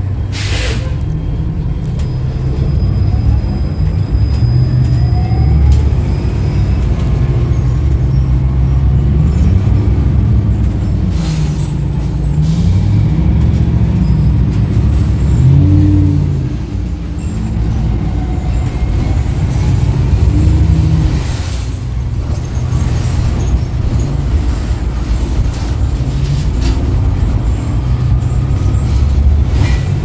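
Cabin ride sound of a 2016 New Flyer XDE60 articulated diesel-electric hybrid bus with a BAE hybrid drive, its low drive sound rising and falling in pitch as it speeds up and slows. There is a short hiss about half a second in.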